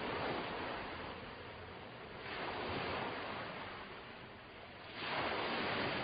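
Ocean waves washing in, the rush of water swelling up three times, about every two and a half seconds.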